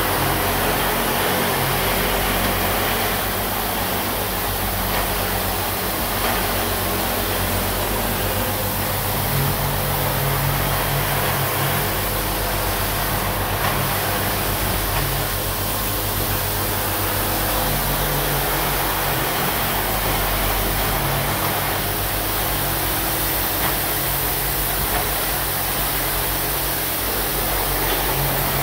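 Automatic deodorant-stick assembly machine running, its vibratory bowl feeders and turntable stations making a steady mechanical drone over a constant low hum.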